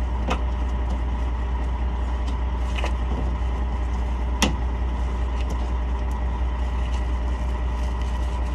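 Steady idling drone of a heavy truck's diesel, the road train's Detroit Series 60 14-litre, with a few short knocks as a bent rubber mud flap is handled; the sharpest knock comes about four and a half seconds in.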